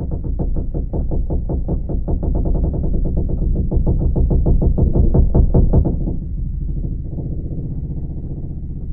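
Creaking deck of an ocean liner: a drawn-out, low creak made of rapid ticks over a deep rumble. The creak eases off about six seconds in, leaving a quieter, steadier creaking.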